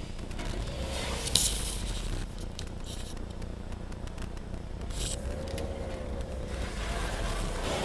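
Pressure-washer wand spraying water onto the car's body and windshield, heard from inside the car: several short hissing passes, the sharpest about a second and a half in, then a steadier spray near the end, over a low steady rumble.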